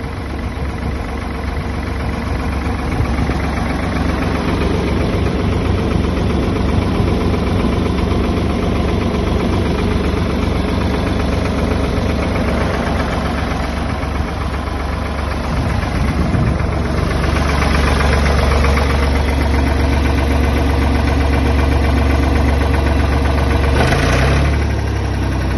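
Ford 4000 farm tractor engine running steadily at idle; it gets louder about two-thirds of the way through, then drops back near the end.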